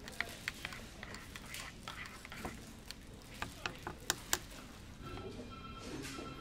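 Metal spoon stirring coffee in a ceramic mug, clinking against the sides in a dozen or so sharp, irregular taps. The taps stop a little over four seconds in, and a faint steady tone comes in near the end.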